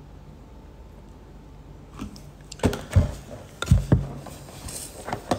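A few loud, low thumps and knocks with some rustling, starting about two seconds in after a quiet start: a handheld phone being moved and handled close to its microphone.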